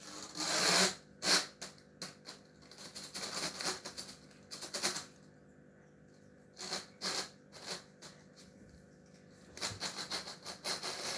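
Irregular rustling, scraping and sharp clicks from fidget toys being handled, in short clusters with quiet gaps between; the loudest is a scrape about a second in.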